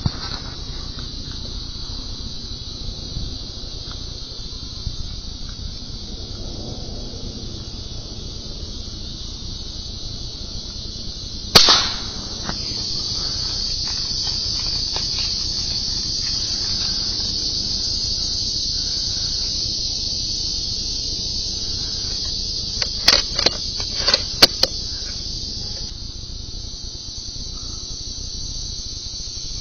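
Insects drone steadily and high-pitched. About eleven seconds in comes a single sharp .22 LR rifle shot, and some twelve seconds later a quick cluster of light clicks.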